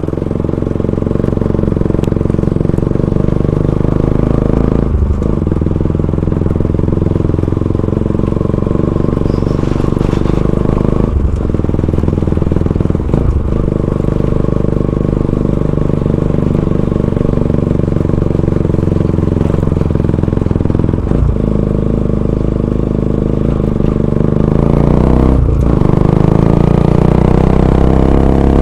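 Bajaj Pulsar NS200 single-cylinder engine running through an aftermarket Akrapovic full-system exhaust, its note climbing with brief breaks about five times, like gear changes under acceleration. It grows a little louder near the end.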